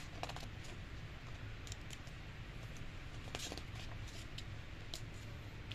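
Pages of a thick, glossy photo book being handled and turned: a few faint, short paper rustles and clicks over a steady low background hum.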